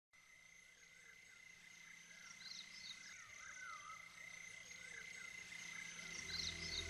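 Opening of a new-age background music track with recorded nature sounds: short chirping animal calls repeating over a steady high drone, fading in from silence. Low music notes come in about six seconds in.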